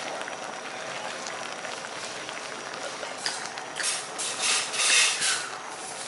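A pot of fish soup boiling hard on a tabletop burner: a steady bubbling hiss that grows louder in uneven surges over the second half.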